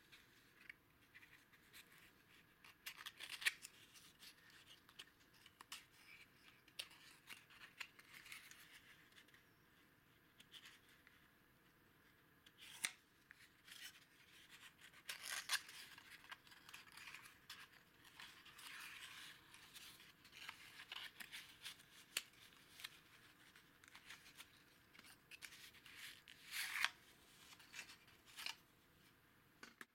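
Faint handling noise of a small cardboard box being turned in the fingers and its end flap opened: scattered light clicks, scrapes and rustles of card, coming in short patches with quiet gaps between.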